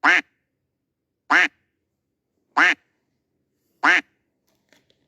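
A looped duck-quack sound effect: the same short quack repeats four times, evenly spaced about every 1.3 seconds.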